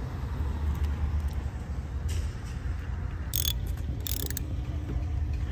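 Socket ratchet wrench clicking in two short runs, about three and four seconds in, as it turns a bolt on a car battery's hold-down bracket, over a steady low hum.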